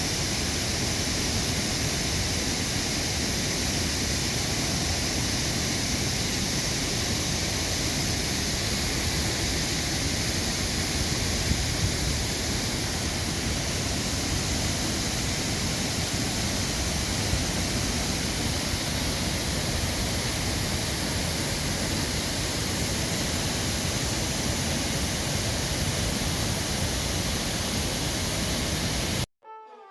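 Waterfall: a steady, dense rush of falling water that cuts off abruptly just before the end, giving way to soft violin music.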